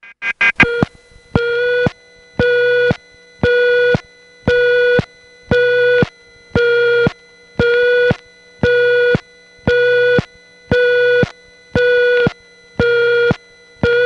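Telephone exchange tone on a payphone line from the Laurelton 5 central office: a slow on-off tone about once a second, each pulse starting with a loud click, like a busy signal at half the speed, after a quick flurry of clicks at the start.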